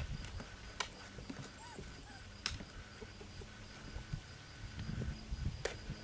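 Four-and-a-half-week-old Doberman puppies and their mother scrambling about in a hard plastic dog bed: a few sharp knocks and scuffles over a low rumble, with a faint short squeak near the middle.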